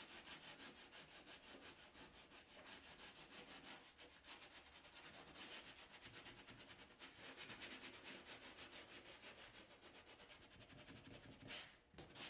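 A sanding sponge scrubbed quickly back and forth over drywall joint compound patched around shelf bracket rods on a wall, sanding the compound between coats. It makes a quiet, fast, even scratching, with a slightly louder stroke near the end.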